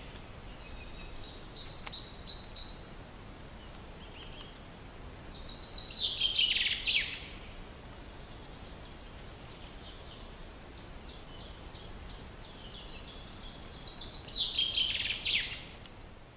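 Bird song: a loud phrase of rapid high notes ending in a few quick falling sweeps, repeated about every eight seconds, with softer chirping between phrases over a steady low background hiss.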